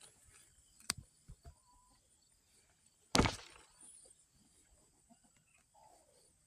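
A few sharp knocks and scrapes of hand-digging in garden soil to lift sweet potatoes, the loudest a little after three seconds in.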